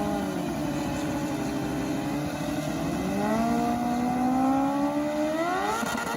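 Racing motorcycle engine sound effect: the engine runs with its pitch climbing slowly, then revs up quickly near the end and holds steady.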